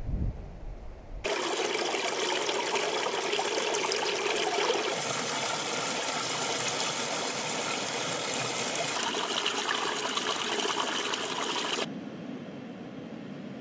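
A small stream spilling over rocks into a pool: a steady, loud splashing trickle. It starts about a second in after a brief low rumble and cuts off sharply near the end.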